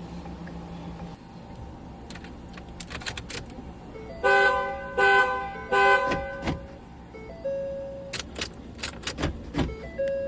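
Ford F-350 horn sounding three short honks in quick succession about four seconds in, then a single chime tone and a run of clicks as the truck's key is being programmed.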